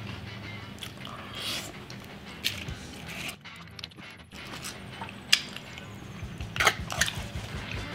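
Close-up chewing and biting into crispy fried chicken tenders: soft wet chewing with scattered sharp crunches, the loudest a little past halfway through, and a brief break near the middle.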